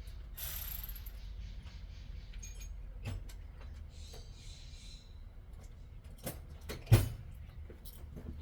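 Hand tools clinking and rattling as someone rummages through a metal toolbox, with one sharp knock about seven seconds in.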